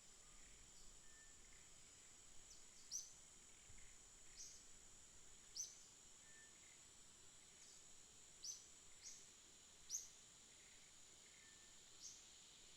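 Small aviary birds chirping: several short, high, falling chirps a second or so apart, over a steady high hiss.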